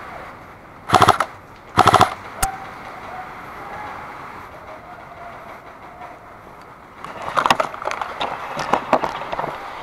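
Airsoft electric rifle (AEG) firing two short full-auto bursts about a second apart, each a rapid rattle of clicks, followed by a single click. Later come irregular rustling and clicking of movement and gear.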